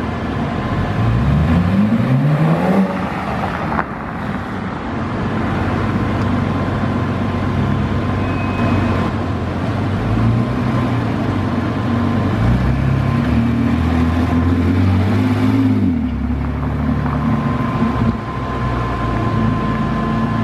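Engines of departing sports cars at low speed, chiefly a modified Nissan GT-R R35's twin-turbo V6. A quick rev rises about a second in; later the revs climb in steps and then drop off about four seconds before the end.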